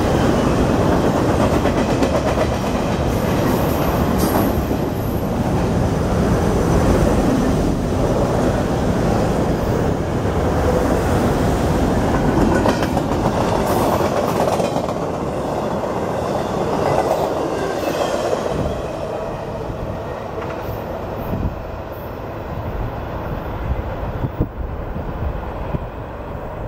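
A SEPTA Silverliner IV electric commuter train pulling out while a CSX freight train passes on the next track: a steady rumble and clickety-clack of wheels on rail, easing off over the last third.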